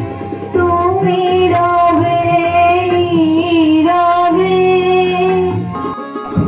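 A young woman singing into a microphone, holding long wavering notes over steady instrumental accompaniment; the song breaks off abruptly near the end.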